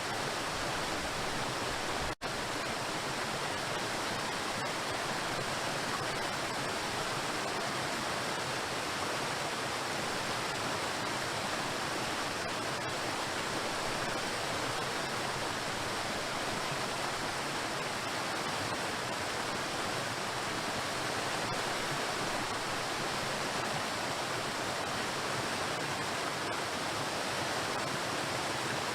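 Waterfall: a steady rush of water falling onto rocks, with a momentary break in the sound about two seconds in.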